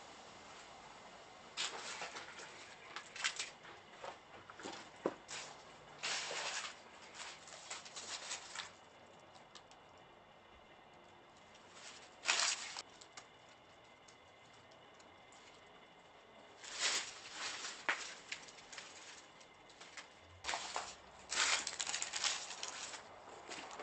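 Footsteps crunching over leaf litter, broken tile and debris, in irregular clusters of crackly steps with a pause in the middle.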